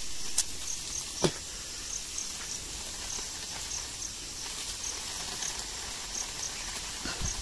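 An insect chirps at a high pitch, a short chirp every half second or so, over a steady hiss. There are a couple of light clicks in the first second or so.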